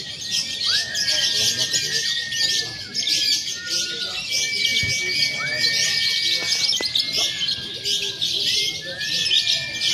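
Many lovebirds singing at once, as at a lovebird song contest: a dense, unbroken high chattering and trilling, with long steady whistled notes beneath it that drop in pitch at their ends.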